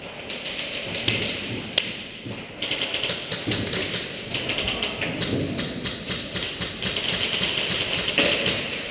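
Airsoft gun firing rapid full-auto bursts: runs of fast, even clicks several seconds long, with a single sharper crack about two seconds in.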